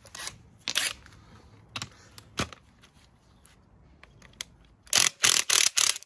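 Cordless impact wrench fired in about six short bursts near the end, loosening the top nut on an air strut's pillow-ball mount. Before that, a few sharp clicks and clanks of the socket being fitted.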